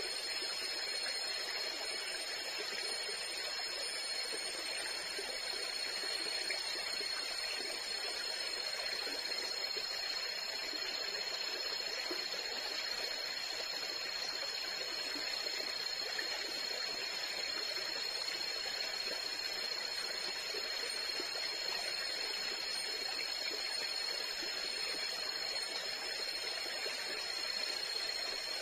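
Steady tropical-forest ambience: a constant rushing like a nearby stream, with a steady high drone from insects.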